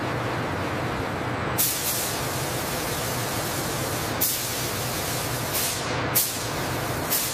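Paint spray guns on robotic arms hissing steadily, with several short, sharper bursts of spray.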